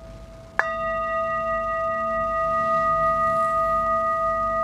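A metal singing bowl struck once with a mallet about half a second in, then ringing on in a clear steady tone with higher overtones, pulsing slowly as it sustains.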